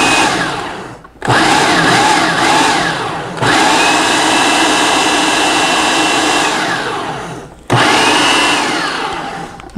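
Countertop food processor run in repeated pulses, blending chickpeas, tahini and roasted red pepper into hummus. The motor whirs up and fades as it winds down, restarting about three more times, roughly a second, three and a half seconds and seven and a half seconds in.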